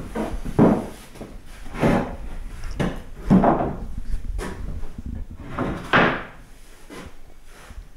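Long larch boards being lifted and shifted where they lean against a wall, bumping and scraping against each other and the wall: about four loud wooden knocks with lighter taps and scrapes between.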